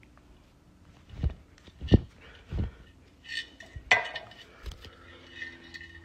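Hard objects being handled while broken glass is cleared up: several dull thumps over the first three seconds, then a few clinks, the sharpest about four seconds in.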